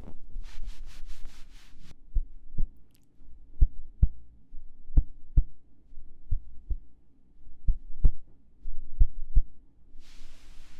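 Soft, low double thumps in a slow heartbeat rhythm: six lub-dub pairs, each about one and a half seconds apart. A breathy hiss comes in near the end.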